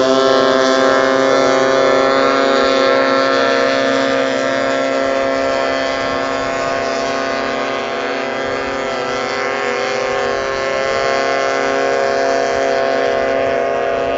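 Racing outboard motor on a small race boat running at high revs: a steady, high-pitched engine drone with many overtones. A second engine's pitch rises and falls faintly in the second half.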